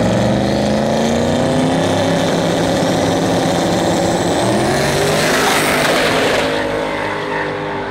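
Cars racing under hard acceleration, engine pitch climbing at full throttle, then passing close with a loud rush of noise about five seconds in before falling away.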